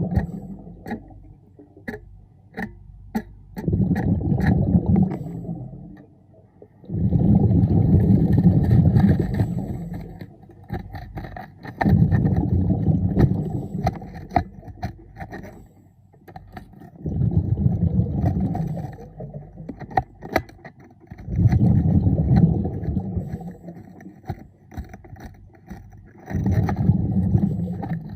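Diver's breathing underwater: exhaled bubbles rumbling from the breathing regulator in bursts of two to three seconds, about every four to five seconds, with scattered sharp clicks in between.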